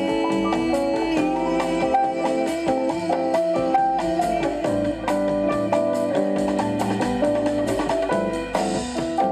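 Instrumental music with guitar and drums, at a steady beat.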